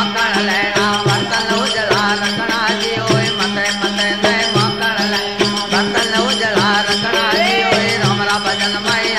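Marwari desi bhajan music: a steady drone under a wavering melodic line, with a regular low drum beat.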